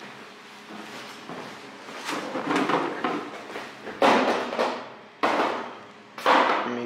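Three sudden thumps about a second apart in the second half, each dying away over about a second, with fainter knocking before them.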